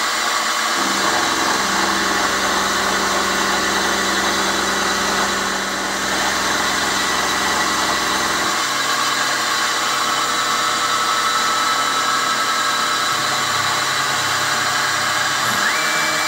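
6 mm three-flute carbide end mill at about 2000 RPM taking a roughing cut in a stack of cold-rolled steel blanks: steady spindle and cutting noise. A lower hum joins about a second in and stops at about eight and a half seconds.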